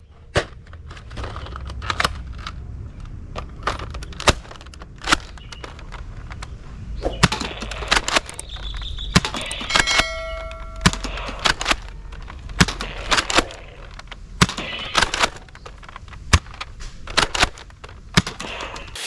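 Irregular sharp plastic clicks and clatter from toy guns being handled and worked, over a low rumble. A short electronic tone sounds about ten seconds in.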